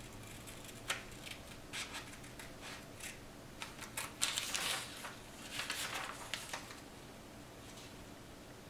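Scissors cutting a sheet of printer paper along printed lines: a run of faint, short snips with some rustle of the sheet, busiest about four to six seconds in.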